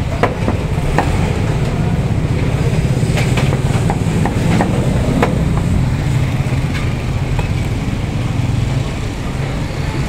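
A meat cleaver chopping chicken on a wooden block: several sharp knocks in the first half. Underneath is a steady low rumble, which is the loudest sound.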